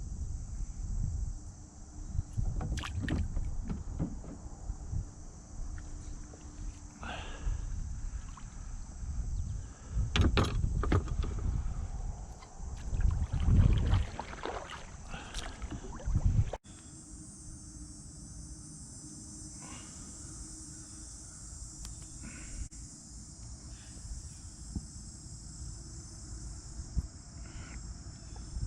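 Knocks and low rumbling from handling and paddling in a kayak, over a steady high chirring of insects. About 16 seconds in it changes abruptly to the insect chirring alone, with a few faint clicks.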